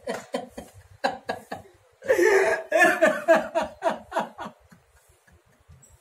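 A man sobbing and wailing in grief: short gasping sobs, a loud drawn-out wail about two seconds in, then quieter sobs dying away.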